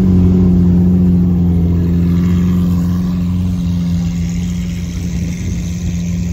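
Supercar engine running at low revs, a deep steady drone that eases slightly after the first couple of seconds as the car rolls slowly past.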